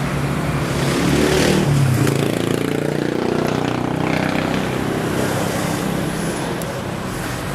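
A motor vehicle's engine running steadily, its pitch rising and then falling between about two and five seconds in.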